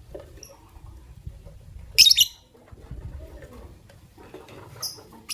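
Lovebird giving a loud, brief burst of high chirps about two seconds in, then a shorter chirp or two near the end.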